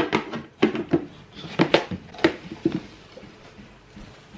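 A spoon knocking and clinking against kitchen dishes while batter and topping are spooned out, about seven sharp clinks in the first three seconds, then only faint handling.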